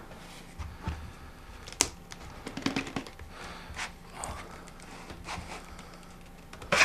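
Cardboard phone box being handled: the inner tray slides out of its printed sleeve with light scraping and rustling, broken by a few small clicks and taps, a sharper one near the end.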